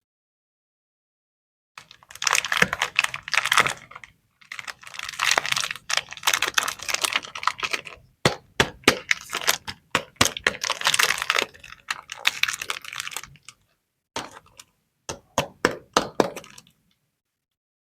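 Chocolate packaging being handled and opened by hand: wrappers rustling and crackling in bursts, broken by many sharp clicks. It starts about two seconds in, with short pauses, and stops a little before the end.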